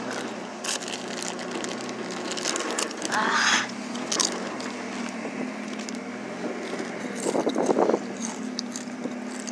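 Pickup truck moving slowly, heard from the open bed: a steady low engine hum under scattered clicks and rattles, with two short louder noises about three and seven seconds in.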